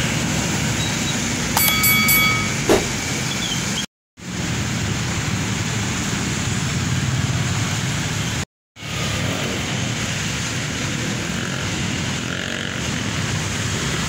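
Street traffic noise: a steady rush of passing vehicles, with a brief high tone about two seconds in. The sound drops out to silence twice, briefly, where the footage is cut.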